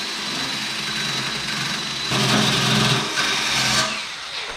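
Power tool with a wire wheel spinning and brushing fresh welds on a steel exhaust pipe, cleaning them up. It gets louder about two seconds in while the wheel is pressed on, then winds down near the end.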